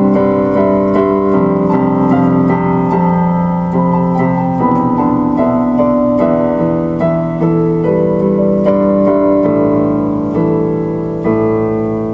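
Solo keyboard music with a piano sound: slow, sustained chords with notes changing about once a second.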